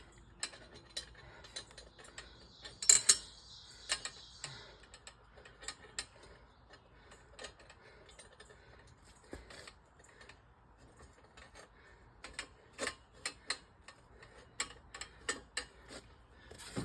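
Scattered light clicks and knocks of hands and tools working on a tire and wheel. One louder knock with a short hiss comes about three seconds in, and a quicker run of clicks comes near the end.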